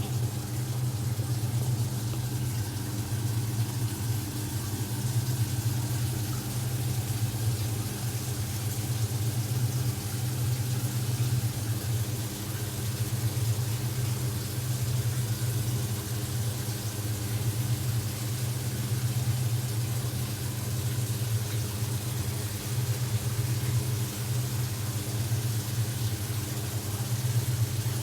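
Portable line boring machine running, a steady low machine hum with a hiss above it.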